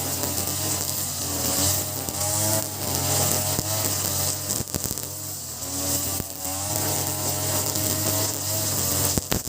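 Small two-stroke brush cutter engine (Ogawa BG330, 33cc, fitted with a larger 43cc carburetor) running, its pitch wavering up and down, with a few sharp clicks.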